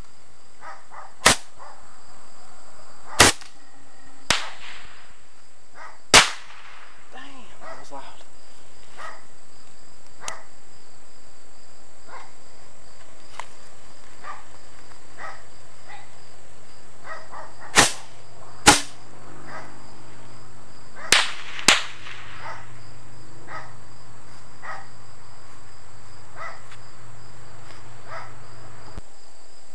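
Small backyard fireworks going off: eight sharp bangs, the first about a second in and the last a little past twenty seconds, with fainter pops between them. Insects chirp steadily underneath.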